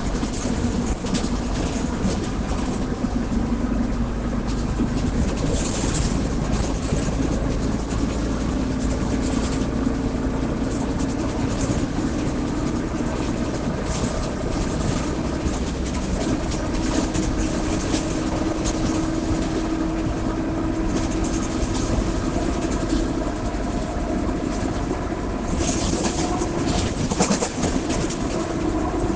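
Caio Apache VIP IV city bus on the move, its differential growling: a steady drone that steps up in pitch about halfway through, over the low rumble of the drivetrain. Rattles and knocks come through now and then, most of them near the end.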